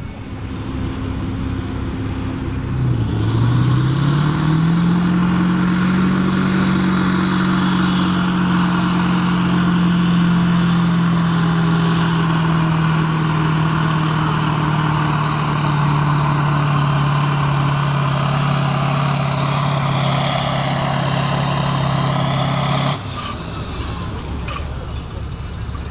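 Kirovets K-700 tractor's tuned turbocharged diesel engine at full power pulling a braking sled. It climbs to a loud, steady drone a few seconds in, with a high turbo whistle rising. The pitch then sinks slowly as the load drags the engine down, and about 23 seconds in it drops off suddenly as the whistle falls away.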